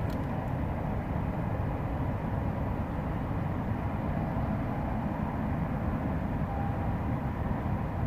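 Steady low rumble of outdoor background noise, even throughout with no distinct events.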